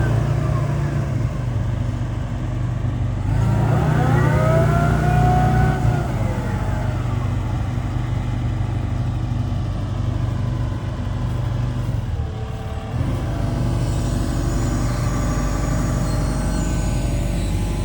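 Hitachi ZX170W-5B wheeled excavator running under its own power, the diesel engine's steady drone overlaid by a whine that rises and falls for a couple of seconds about four seconds in, as the machine works. The engine note dips briefly and changes about two-thirds of the way through.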